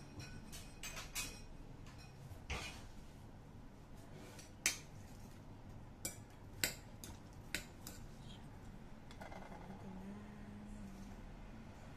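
A metal spoon clinking and tapping against a ceramic bowl several times as pickled chicken feet salad is tossed in it, the loudest clinks about halfway through.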